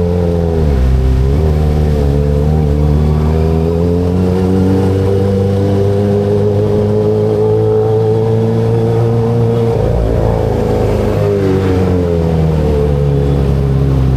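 Kawasaki ZX25RR's inline-four engine under way: the pitch drops briefly about half a second in, then holds a long steady pull with the pitch slowly rising. There is a break around ten seconds, and the engine falls in pitch as the bike slows near the end.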